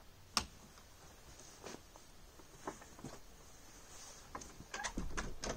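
Wooden shed door being swung shut and its latch worked by hand. There is a sharp knock about half a second in, then a few scattered knocks, and a quick run of clicks and knocks near the end.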